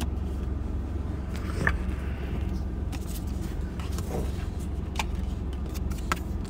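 Steady low rumble of a car's engine heard inside the cabin, with a few faint clicks as cards are set against the windshield.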